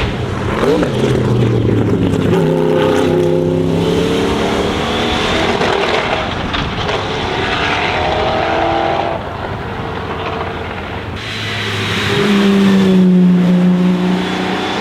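Sauber Mercedes C9's turbocharged 5.0-litre V8 racing engine running hard, its note climbing and stepping through gear changes. It eases off around the middle, then comes back louder and steady near the end.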